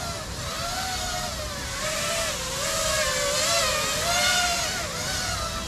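Brushless motors and propellers of a 5-inch FPV quadcopter (T-Motor 2207.5 1950KV motors) whining in flight, the pitch wavering up and down continuously as the throttle is adjusted.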